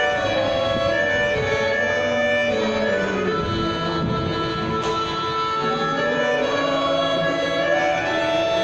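Harmonica playing a slow melody of held notes, often several sounding together as chords, cupped in the hands close to a microphone.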